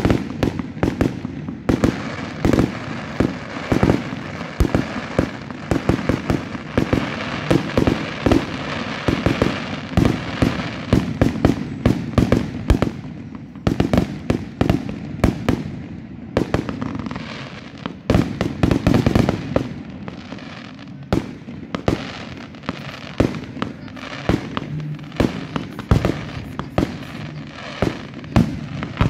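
A fireworks display: a rapid, continuous run of bangs from bursting shells, many overlapping. Through roughly the first dozen seconds a crackling hiss fills the gaps between the bangs; after that the bangs stand out more separately.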